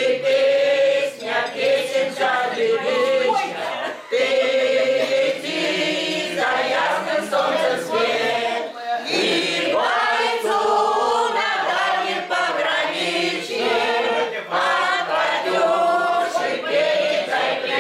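An amateur choir of older men and women singing a song together, the voices carrying on throughout.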